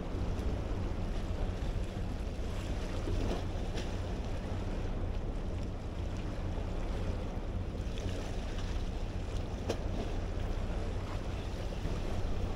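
Steady wind buffeting the microphone over the wash of the sea against a concrete breakwater, with a few faint clicks.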